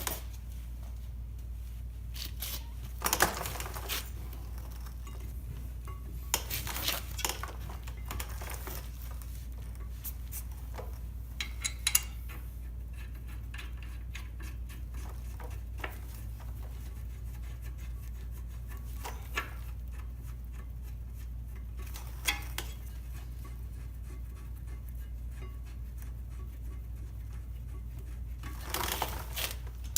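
Scattered metal clinks and clanks from handling a brake caliper mounting bracket and its bolts while it is fitted over a new rotor, spaced a few seconds apart, over a low steady hum.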